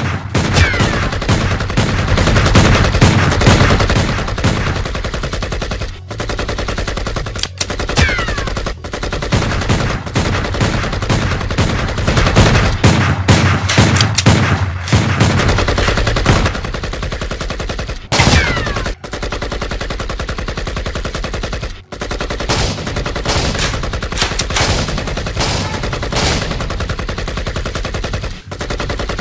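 Action-movie gunfire sound effects: near-continuous automatic fire, bursts overlapping with only a few short breaks, with a few falling whistles like passing bullets or ricochets.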